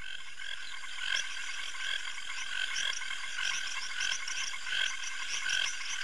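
Chorus of several frog species calling at once at night: many short, overlapping calls at a few distinct pitches, each species with its own tone, keeping up a dense steady din.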